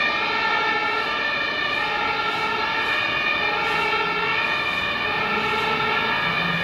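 Fire truck's two-tone siren, stepping steadily back and forth between a high and a low note.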